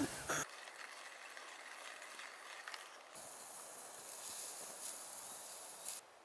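Food sizzling on a muurikka griddle pan over a campfire: a steady hiss that changes abruptly about three seconds in and again near the end.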